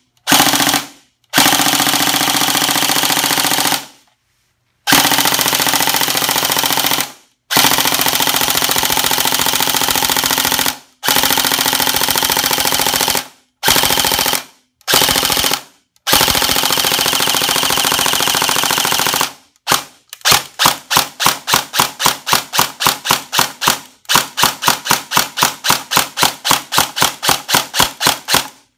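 Bolt Airsoft AK-pattern airsoft rifle with recoil system firing full-auto bursts of about one to three seconds each, the action cycling and the bolt reciprocating. In the last third it fires single shots in quick succession instead, about two to three a second.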